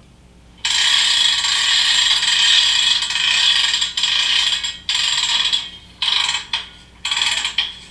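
Railroad car hand brake being set, heard as a sound effect on the model layout: a ratchet wound in one long run of clicking lasting about four seconds, then three short turns.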